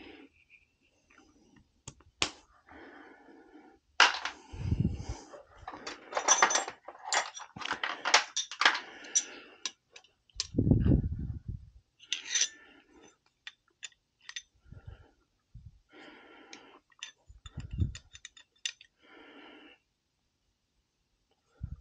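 Steel wrenches clicking and clinking against the brass nozzle adapter of a Riello oil burner as a new nozzle is threaded in and snugged. A dense run of clicks comes a few seconds in, with scattered clicks and three dull low thumps later.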